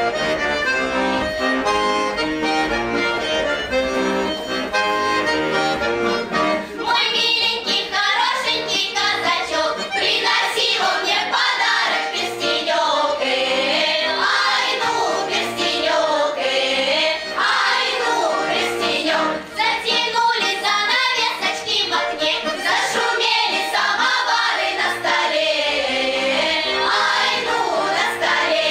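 Accordion playing a Russian folk-song tune, joined about seven seconds in by a group of children singing along with it.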